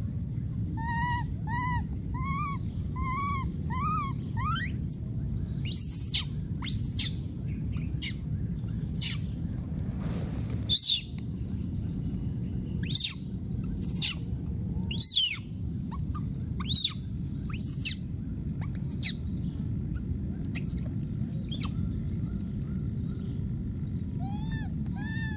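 Infant macaque calling: a run of five short rising-and-falling coos about a second in, then a string of sharp, high squeals that fall steeply in pitch, roughly one a second, and a few more coos near the end, over a steady low background noise.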